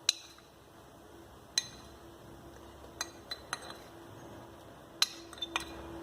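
Small spoon clinking against a bowl while spoonfuls of powdered sugar are measured out: about eight sharp clinks, some single and some in quick groups of two or three.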